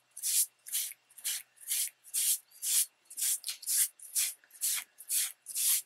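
Soft cloth rubbed back and forth over an embossed magazine image dampened with an alcohol-and-water spray, lifting ink off the raised texture. Each stroke gives a short hiss, about two strokes a second.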